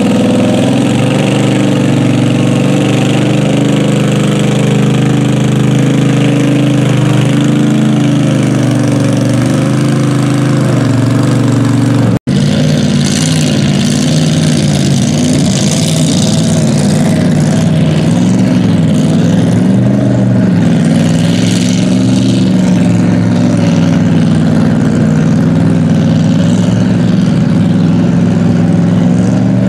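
Engines of big-tired mud-bog vehicles running loud. First a lifted Chevy Blazer mud truck's engine holds an even note. Then, after an abrupt cut about twelve seconds in, a mud buggy's engine note rises and falls as it drives through the water.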